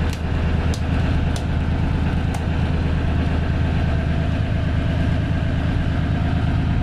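Lifeboat diesel engine idling steadily. Four sharp clicks in the first couple of seconds are the console's light toggle switches being flipped.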